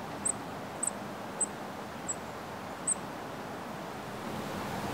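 High, thin call notes of a small songbird: about six short chips roughly half a second apart, over a steady faint hiss of woodland ambience.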